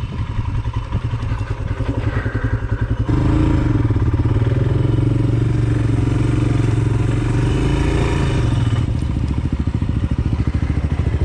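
Royal Enfield Himalayan's single-cylinder engine running at low speed, its exhaust pulses getting louder about three seconds in and easing a little near the end.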